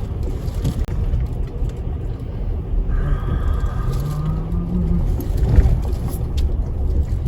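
Car driving slowly with a steady low rumble of engine and tyres. The engine note rises briefly about four seconds in.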